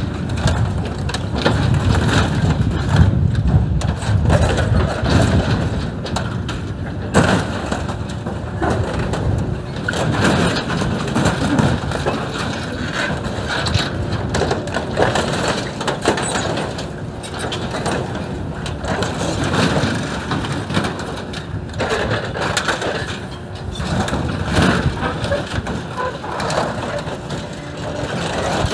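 Excavator crushing and tearing apart scrap farm machinery: a continuous crunch and crack of bending, breaking metal, with many sharp knocks over the excavator's running engine.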